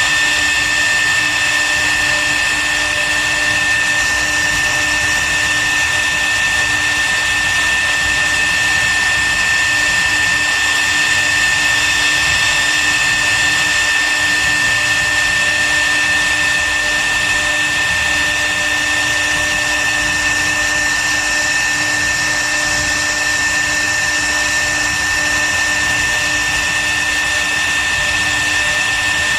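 CNC wood router's spindle running with a steady high-pitched whine over a steady rushing noise.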